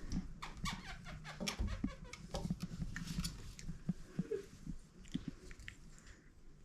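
Five-week-old pit bull puppies mouthing and chewing in play: a string of small irregular clicks, smacks and scuffles.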